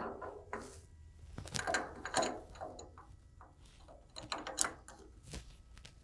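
Steel tool holders being handled: light irregular clinks and clatter as one holder is set down on the mill table and the next is fitted up into the milling machine's spindle.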